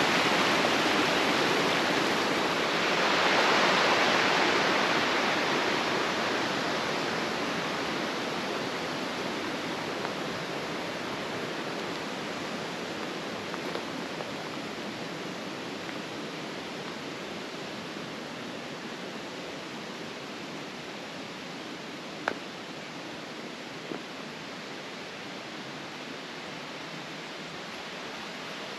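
Water rushing along a canal as a steady rush that swells a few seconds in, then slowly fades. Two short clicks sound near the end, the first sharper.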